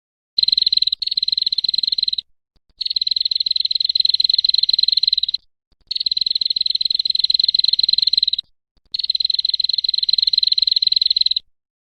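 A high, rapidly pulsed buzzing trill from an animal call, given in four long phrases of about two to two and a half seconds each, with short pauses between them.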